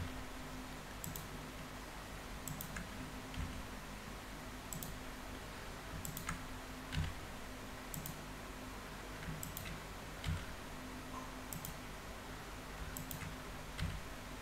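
Computer mouse and keyboard clicks, sharp and irregular, roughly one every second, over a faint steady low hum.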